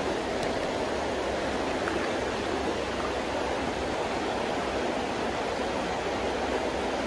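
Creek water running steadily over a shallow rocky riffle.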